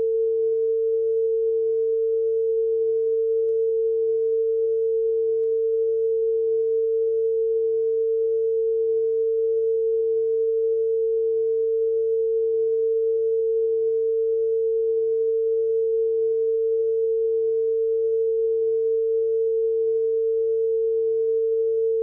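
Line-up test tone played with colour bars: one steady pure pitch, held unchanged.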